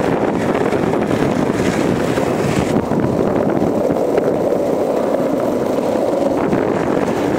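Longboard's urethane wheels rolling fast over pavement: a loud, steady rushing rumble, with wind on the microphone.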